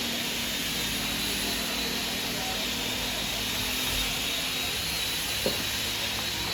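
Machinery running steadily: an even hiss with a thin, slightly wavering high whine over it, and a single sharp click about five and a half seconds in.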